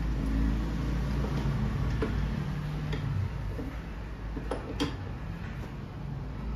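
Scattered light metallic clicks and ticks of spanners working the flare nut on a split air conditioner's copper pipe joint, the sharpest a little past two-thirds of the way through. A low steady rumble underneath fades out after about three seconds.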